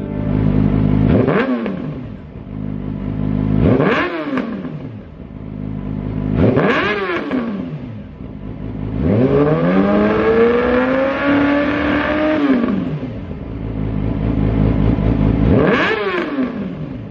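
Yamaha YZF R6's 599 cc inline-four idling through a Lextek full system with XP13C aftermarket silencer, blipped sharply three times, then held at higher revs for about three seconds, and blipped once more near the end.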